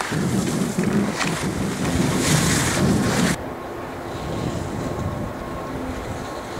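Wind buffeting the camera microphone, a loud rushing noise that cuts off abruptly about three and a half seconds in. A quieter steady rumble with a faint hum follows.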